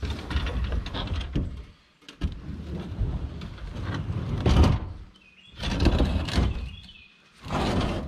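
IBC tote's steel cage and base scraping and grinding over concrete blocks and dirt as it is shoved into place, in four bouts of pushing with short pauses between.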